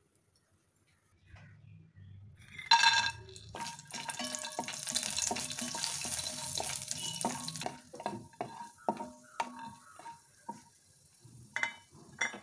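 Cashews frying in hot ghee in an aluminium kadai. A clatter comes nearly three seconds in, then a sizzling hiss for a few seconds, then a wooden spatula knocks and scrapes against the pan in quick taps as the nuts are stirred.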